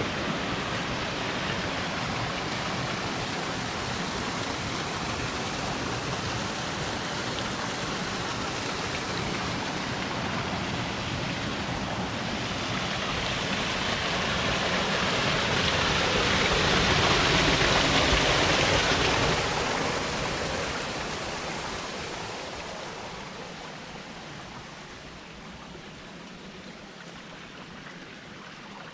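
Rushing water, a steady hiss that swells in the middle, then fades to a quieter flow near the end.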